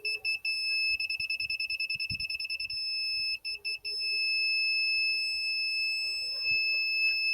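Laser level receiver beeping: high-pitched beeps that quicken into a rapid stutter, then settle about four seconds in into one long steady tone, the signal that the receiver is right on the laser line.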